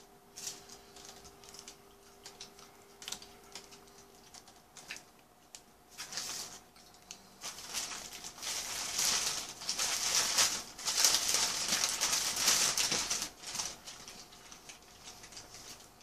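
Paper burger wrapper crinkling and rustling as a burger is unwrapped, loudest in a long run through the middle; lighter rustling and clicks of handling food and paper before it.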